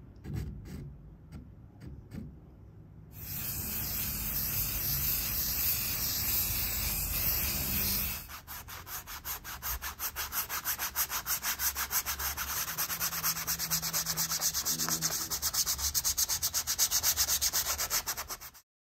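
Brush and hand scrubbing brown paint across a canvas, spreading a wash over the drawing. Faint scratches of charcoal on canvas come first. About three seconds in a steady rubbing starts, which turns into rapid back-and-forth strokes, several a second, about eight seconds in, and cuts off suddenly near the end.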